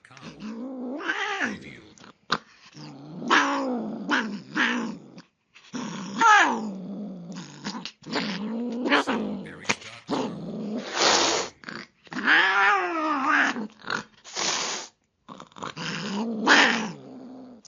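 Angry cat growling and hissing: a string of wavering growls, rising and falling in pitch, broken by several short hisses, with brief pauses between bursts.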